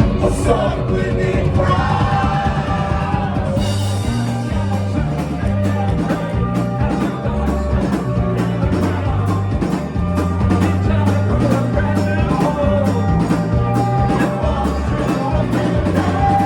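Live band playing an instrumental passage of a rock song, with a bass line and a steady drum beat.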